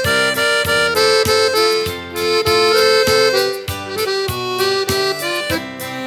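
Button accordion (gaita) playing an instrumental melody line in a sertanejo song, over a strummed guitar keeping a steady beat.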